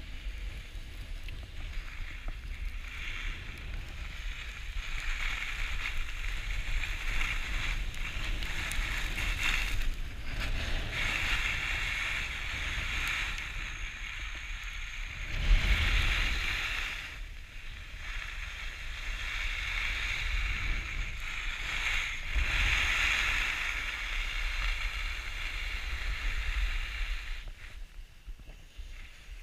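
Skis sliding and scraping over packed snow on a downhill run, a hiss that swells and fades with each turn, over low wind rumble on the camera microphone. The loudest rush comes about halfway through.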